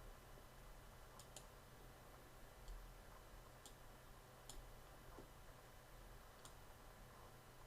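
Near silence with a faint low hum and about six faint computer-mouse clicks at uneven intervals, two of them close together about a second in.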